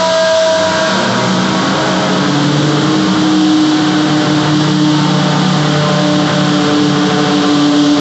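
Dodge Turismo Carretera race car's V8 engine running hard on a chassis dynamometer. Its revs drop about a second in, then it holds a steady, slightly rising pitch.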